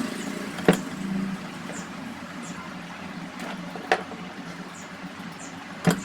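Three sharp knocks a few seconds apart over a steady low hum.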